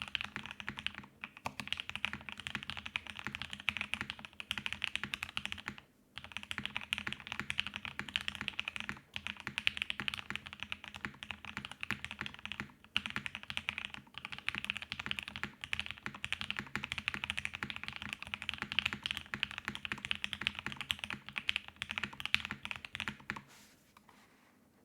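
Fast, continuous typing on a CAKE60 plexiglass 60% mechanical keyboard with lubed C3 Banana Splits linear switches, an FR4 half plate, an o-ring mount and CRP Peacock R4 keycaps. There are brief pauses about 6, 9 and 13 seconds in, and the typing stops shortly before the end.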